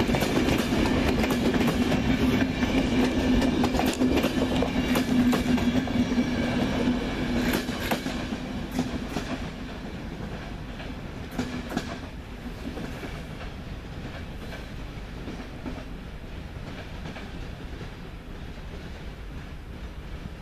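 Passenger coaches rolling past, their wheels clattering over the rail joints with a steady hum beneath. After about eight seconds the clatter fades as the train draws away, leaving a faint steady rumble.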